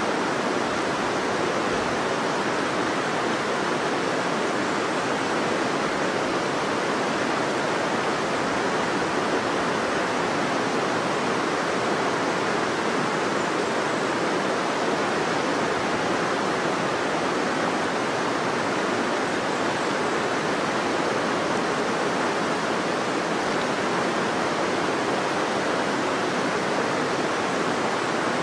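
River water flowing steadily, an even wash of water noise with no breaks or changes.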